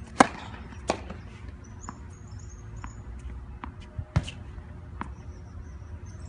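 Tennis ball struck by a racket on a serve, a sharp pop about a quarter second in. It is followed by a few fainter ball hits and bounces spread through the rest of the clip.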